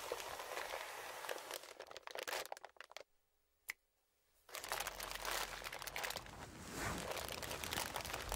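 Plastic instant-noodle packets (Samyang Jjajang Hot Chicken Flavor Ramen) crinkling as they are handled and stacked, with a pause of about a second and a half near the middle marked by a single click.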